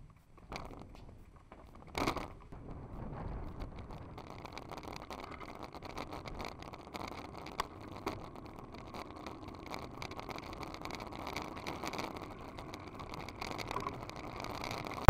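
Bicycle rolling over asphalt: a steady road-noise rush with frequent small clicks and rattles, and a louder bump about two seconds in.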